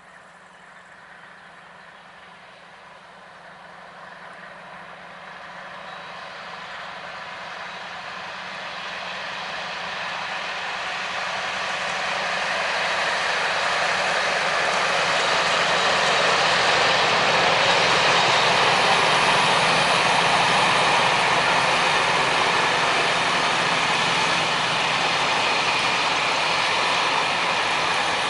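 Diesel locomotive hauling a long train of flat wagons as it approaches and passes: a steady engine drone and rolling wheel noise grow louder over about twelve seconds, then stay loud as the train goes by.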